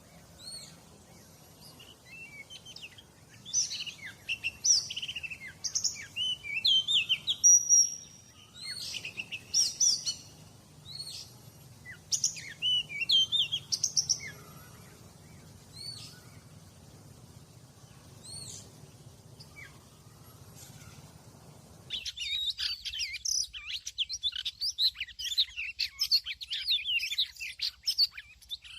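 Oriental magpie-robin singing: phrases of varied whistles and chirps that come in loud clusters and then thin out. About three-quarters of the way through, the background changes abruptly and dense, rapid chirping takes over.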